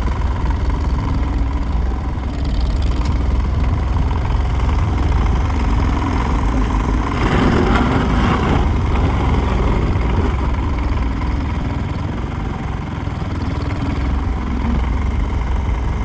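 Tractor engine running steadily, with a louder, noisier stretch about halfway through.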